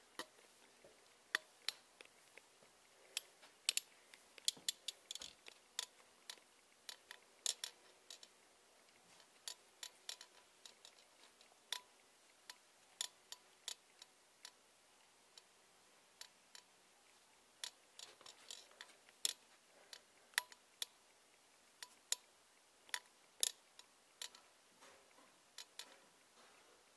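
Scattered light, sharp clicks, irregular and at times several a second, over a quiet room.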